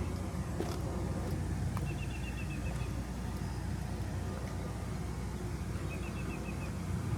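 Steady low outdoor rumble, with a small bird twice giving a quick run of short, high chirps, about half a dozen notes each time.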